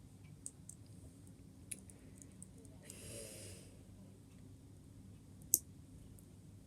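Small plastic LEGO pieces being handled and pressed together: scattered light clicks, a short breathy hiss about three seconds in, and one sharper snap about five and a half seconds in.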